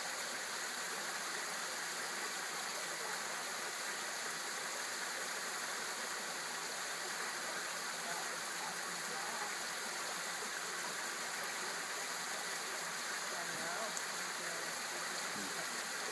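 Pool rock waterfall: water steadily spilling and splashing from the rock feature into the pool.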